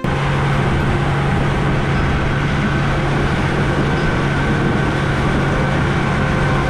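A boat's motor running steadily at speed, a constant low hum, mixed with the rush of wind and water as the boat moves.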